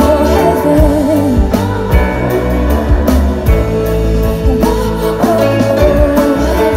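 Live pop band playing: a woman sings a drawn-out, wavering vocal line over electric guitar and drums.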